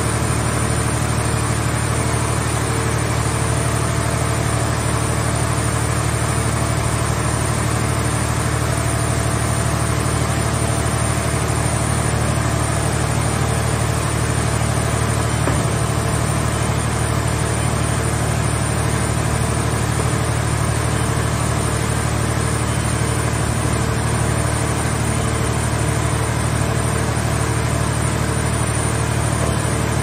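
Power unit of a scrap car shell baler running steadily, a constant low drone with no change in speed, while the operator works its hydraulic grab arm.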